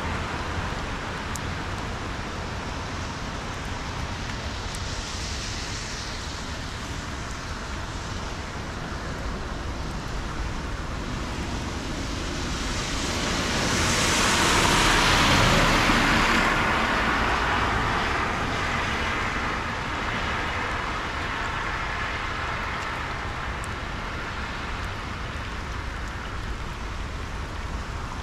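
A car driving through a flooded road, its tyres throwing up a hiss of spray that swells as it passes about halfway through and then fades. A steady wash of traffic noise runs underneath.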